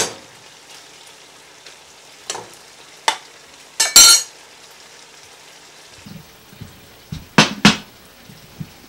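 Chicken thighs sizzling in a frying pan as a splash of dark rum reduces, with a few sharp clanks and scrapes of a metal spoon against the pan, the loudest about four seconds in, and another pair of sharp knocks near the end.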